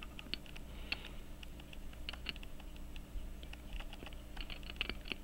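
Scattered light, irregular clicks and taps of tweezers and fingertips working on a pocket watch movement: an 18-size Illinois Bunn Special clamped in a movement holder.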